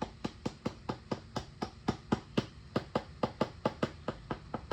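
A plastic screwdriver handle tapping a utility knife blade in quick, even strokes, about four a second, driving the blade under the edge of a glued-in plug disc.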